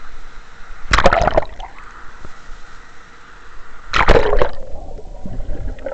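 Water splashing over a camera at the foot of a waterfall, against the steady rush of falling water: two loud bursts of splashing, about a second in and about four seconds in. With the second the camera goes underwater and the sound turns muffled.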